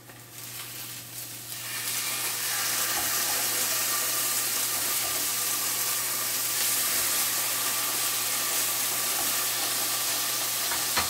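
Marinated salmon fillets sizzling in a hot frying pan as they are turned over with tongs, the sizzle swelling about two seconds in and then holding steady: the sizzle wanted from a properly hot pan.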